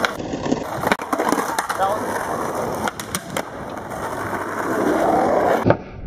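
Skateboard wheels rolling over rough asphalt, with several sharp clacks of boards popping and landing. The clacks come about a second in, three close together around the three-second mark, and one near the end.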